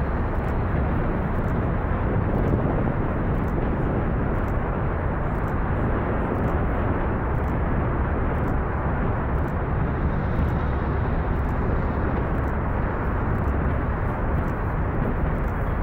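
Four RS-25 liquid-fuelled rocket engines of the SLS core stage firing at full duration during a static hot-fire test: a steady, deep, unbroken rumble.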